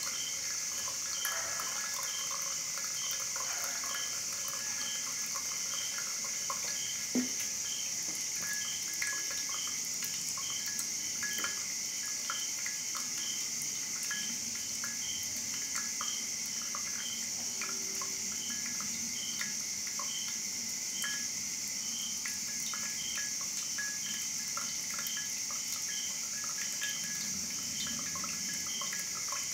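Hot water trickling from a gooseneck kettle onto V60 coffee grounds, with brewed coffee dripping into the glass server below. Under it runs a steady high hiss and a faint regular chirp about twice a second.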